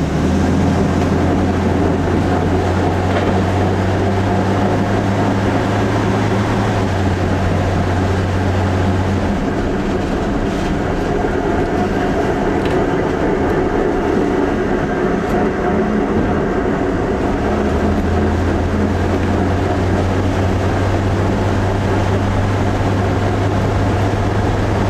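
Ultravan motorhome driving on the road: its Corvair air-cooled flat-six engine runs under load over road rumble and a grinding from the front wheels, where a brake drum's edge is rubbing on the backing plate. The engine drone shifts pitch, drops away for several seconds in the middle, then comes back.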